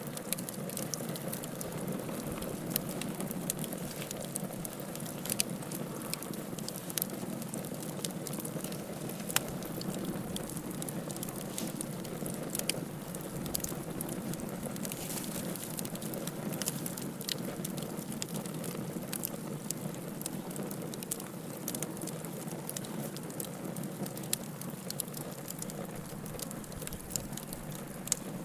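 Bonfire burning, wood crackling with many sharp irregular pops over a steady low rush.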